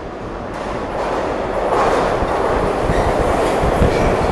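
New York City subway train pulling into an underground station, its rumble growing steadily louder as it runs in alongside the platform.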